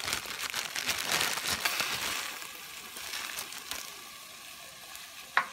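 A plastic bag crinkling as frozen berries are tipped out of it, the hard frozen berries clattering into a stainless steel pot. The crackle is busiest in the first two seconds and then dies down, with one sharp click near the end.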